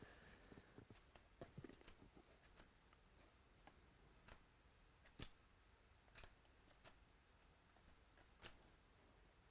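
Near silence with faint, scattered clicks, roughly one a second, from baseball cards and packs being handled.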